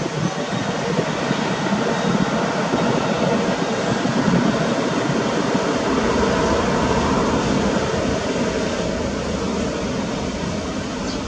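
Boeing 787-8's twin turbofan engines running at high thrust on its takeoff roll: a steady, heavy jet roar, loudest about four seconds in and easing slightly toward the end.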